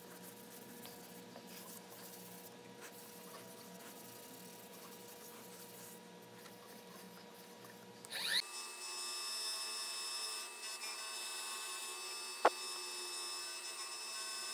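Workshop power tool running with a steady hum. About eight seconds in the sound changes abruptly, with a short rising squeal, to a thinner, higher whine. A single sharp click comes near the end.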